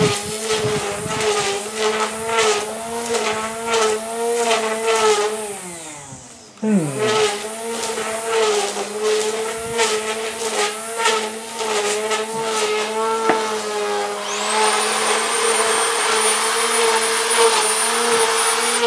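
Corded electric grass trimmer running and cutting long grass, its motor pitch wavering as the load changes. About six seconds in it is released and winds down, then starts up again straight away; near the end a high whine and hiss join in.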